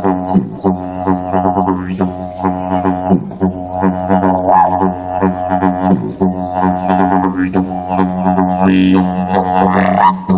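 Music: a low, steady droning wind instrument whose tone sweeps up and down, with sharp percussive taps at intervals.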